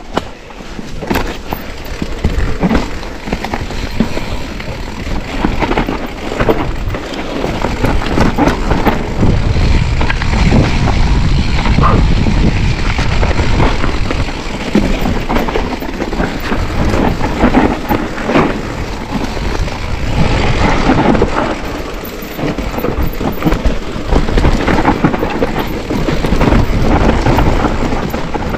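Mountain bike riding a dirt trail, heard from the bike: tyres rolling over dirt and dry leaves, the bike rattling and knocking over bumps, with a steady wind rumble on the microphone.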